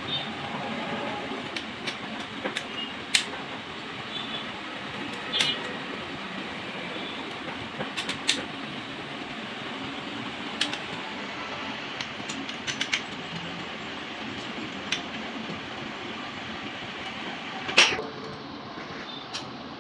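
Steady mechanical hum with scattered sharp metallic clicks and taps, the loudest near the end: hand tools being worked on a motorcycle engine.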